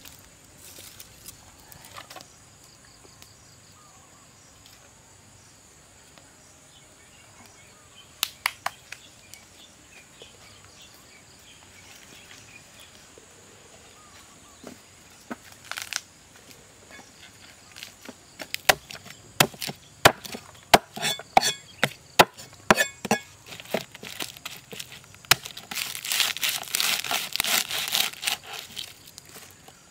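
Cleaver chopping lemongrass stalks on a wooden chopping board. A few scattered knocks come first, then from about two-thirds of the way in a quick, dense run of sharp chops.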